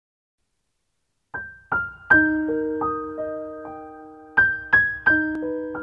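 Intro music: a gentle keyboard melody of single struck piano notes that ring on and overlap, starting about a second in.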